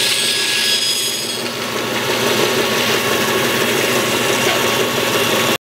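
Bandsaw running and cutting through a 1-inch-thick wood blank, a steady machine noise with a faint high whine early on. It cuts off suddenly near the end.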